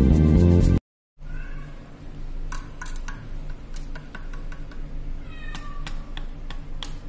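Background music cuts off under a second in. Then a domestic cat meows twice, briefly, the second call falling in pitch, over a low hum and a scatter of sharp clicks.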